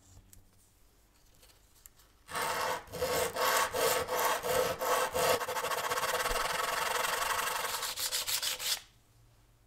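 A wooden handle knob rubbed back and forth over a sheet of sandpaper laid flat, sanding patches of filler flush. The rasping starts about two seconds in and stops sharply near the end, in uneven strokes at first, then steadier.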